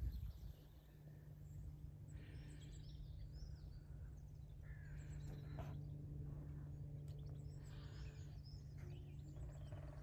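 Outdoor ambience: several small birds giving short scattered chirps and calls over a steady low hum.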